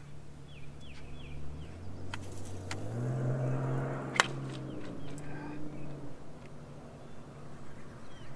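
Boat motor humming at a few steady speeds, stepping up in pitch twice in the first three seconds and dropping back near the end, with one sharp click about four seconds in.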